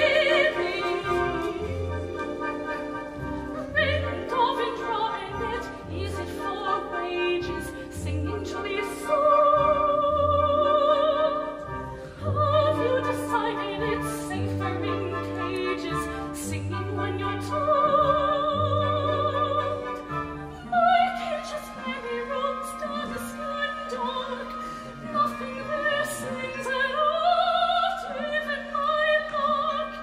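A soprano sings a slow musical-theatre ballad with orchestra, her held notes wavering with vibrato. Under her, a low bass note pulses about once a second, then gives way to a sustained low note about two-thirds of the way in.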